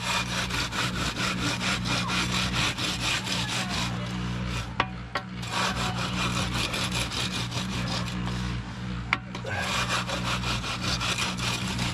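Screed board drawn back and forth in a sawing motion across freshly poured lean concrete: a rapid, rhythmic scraping that breaks off briefly twice, about five and nine seconds in. A steady low hum runs underneath.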